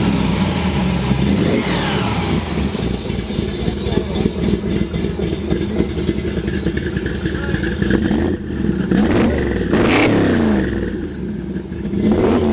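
Plymouth Barracuda V8 running through its exhaust, idling steadily, then revved several times in the last few seconds, the pitch climbing and falling back with each blip.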